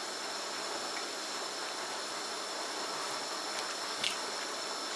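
A steady hiss, with a single light click about four seconds in as a kitchen knife cutting a slice from a block of hard cheese meets the wooden cutting board.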